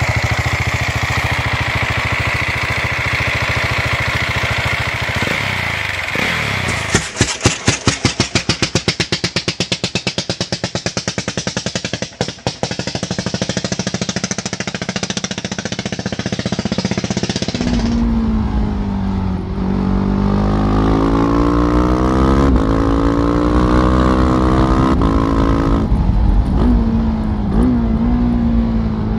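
Single-cylinder motorcycle engines in a run of clips: first an engine running steadily, then a big single with slow, even thumps, then from about eighteen seconds in a Husqvarna Vitpilen 701's 693 cc single on the move, its pitch rising and falling as it revs up and shifts.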